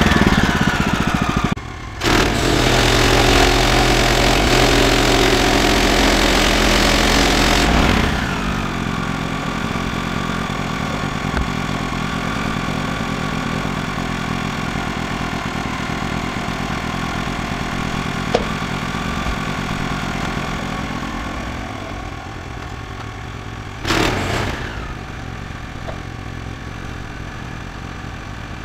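Woodland Mills HM126 band sawmill's gas engine running at full throttle with the band blade driven, then throttled back to a steady idle about eight seconds in. A short rev comes near the end.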